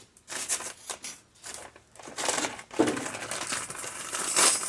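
Irregular rustling, scraping and small clicking handling noises as new brake pad hardware clips are handled and swapped in on the rear brake caliper bracket, with the longest, loudest stretch in the second half.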